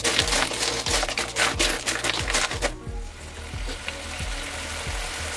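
Cockles in their shells frying in a hot wok, sizzling loudly as soon as thin soy sauce goes into the pan, with the shells clattering as they are stirred. The sizzle starts suddenly, stays busy for about the first three seconds, then settles into a steadier hiss.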